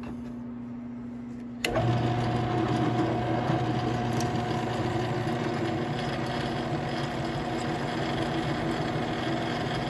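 Drill press running, with a low steady hum at first. Suddenly, just under two seconds in, it gets louder as the twist bit cuts down through a steel bolt lubricated with cutting fluid, and the cutting holds steady.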